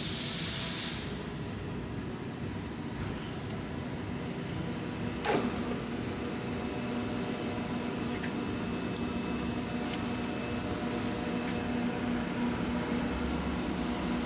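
Steady hum of a powered-up Daewoo Mynx 500 vertical machining center and its electrics, with several steady tones. There is a short hiss in the first second and a single sharp click about five seconds in.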